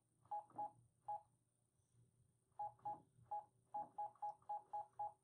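Keypad of a Brother MFC-J480DW inkjet printer beeping with each key press as a Wi-Fi password is entered: about a dozen short beeps of the same pitch, three near the start, a pause of about a second and a half, then a quicker run of nine.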